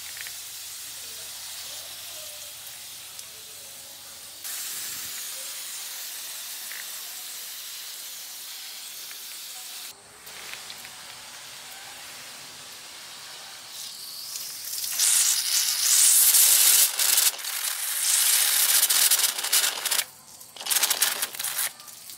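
Homemade PVC pump-pressure spray bottle spraying a fine mist of water through its brass nozzle, a steady hiss. In the second half the spraying gets much louder and uneven, breaking off briefly near the end and then coming in a few short bursts.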